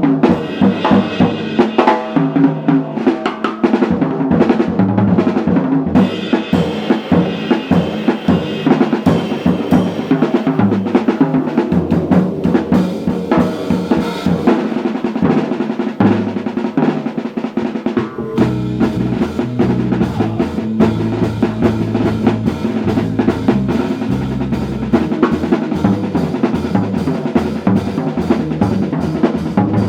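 Live jazz band playing, with the drum kit to the fore: snare, bass drum and cymbals driving a busy rhythm over pitched instruments. Deeper bass notes come through more strongly a little past halfway.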